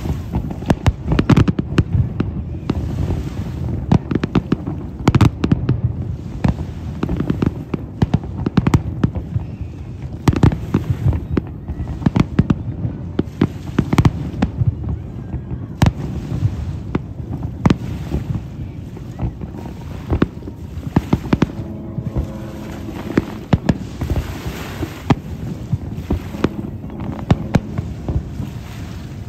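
Large fireworks display: shells bursting in a rapid, unbroken run of sharp bangs over a low rumble.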